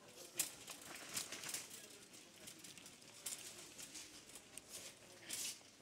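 Faint supermarket ambience: scattered light clicks and clatters, with distant voices murmuring underneath.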